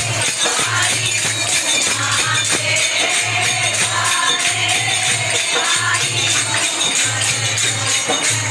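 Devotional group singing, a bhajan, accompanied by a steadily shaken tambourine jingling in an even rhythm, with a low beat about once a second.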